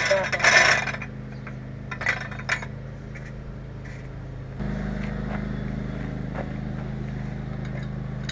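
Metal clanking and a few short knocks from the homemade tire changer's post and fittings as they are handled. Underneath, a steady low mechanical hum that gets louder a little past halfway.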